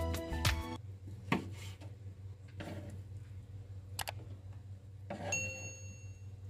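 Background music ends about a second in. Then come faint taps of a kitchen knife slicing wood ear mushroom on a wooden cutting board, over a steady low hum. A sharp click about four seconds in is followed a second later by a clear, bell-like notification chime lasting about a second.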